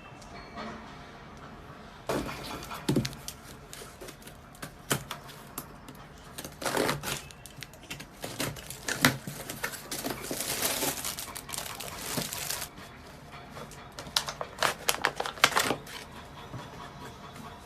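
Packaging being handled and opened: irregular crinkling and tearing with sharp clicks, coming in bursts.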